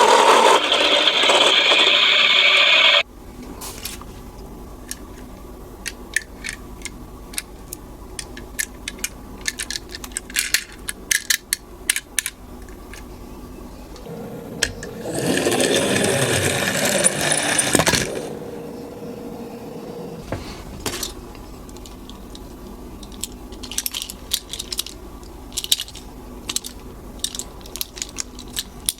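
Small toy minicars clicking and clattering against one another and a hard toy surface, in scattered light taps. A loud rushing noise fills the first three seconds and cuts off sharply, and a shorter rushing stretch comes about halfway through.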